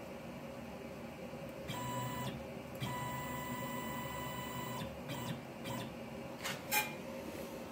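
CNC machine's X-axis stepper motor whining at a steady pitch as the axis jogs: a short move, then a longer one of about two seconds, then two brief blips. A sharp click follows near the end.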